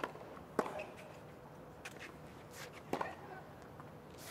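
Tennis ball struck by rackets and bouncing on a hard court during a rally: a handful of sharp pops, irregularly spaced, over a low crowd hum.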